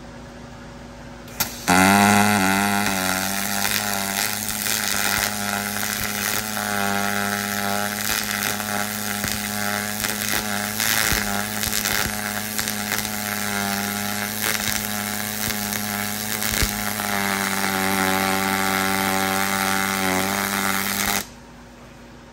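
Pulse MIG welding arc of a YesWelder YWM 211P running a bead on aluminum at 88 amps and 16.5 volts, with 5356 wire under 100% argon. The arc gives a steady crackling hiss with a low hum beneath it, starts about two seconds in just after a short click, and cuts off sharply near the end. At this heat the bead lays in consistently.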